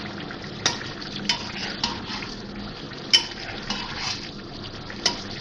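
Metal spatula scraping and knocking against a kadai (wok) while stirring chicken in hot oil, about six sharp clacks spread unevenly over a few seconds. A steady sizzle of frying oil runs underneath as the freshly added spices are fried into the chicken.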